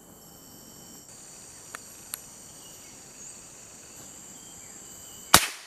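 A steady chorus of crickets and other insects, with two faint clicks in the middle. Near the end a single sharp shot cracks out, the loudest sound: a shot taken at a monitor lizard in a tree.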